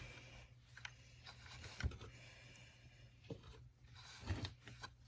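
Faint rubbing and handling noises as a rag is wiped over the chainsaw, with scattered small clicks and a light knock about two seconds in.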